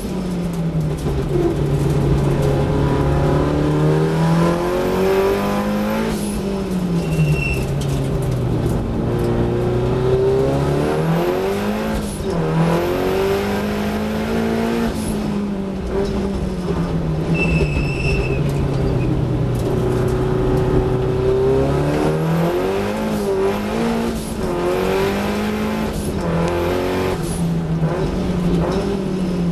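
Datsun 1600 race car's four-cylinder engine heard from inside the cabin at full race pace, revving up through the gears and dropping back again and again as it accelerates out of corners and lifts or brakes into them. Two brief high squeals come through, about seven and seventeen seconds in.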